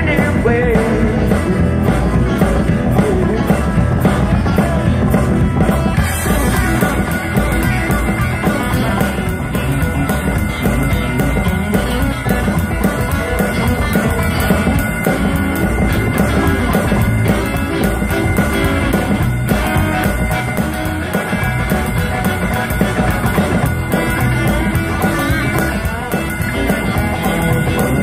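Live rock and roll band playing with a steady beat: upright bass, drum kit, electric guitar and keyboard.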